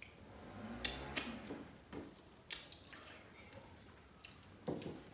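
Hand-eating sounds: fingers squishing and mixing rice with dal and greens on steel plates, with chewing and a few sharp clicks and smacks.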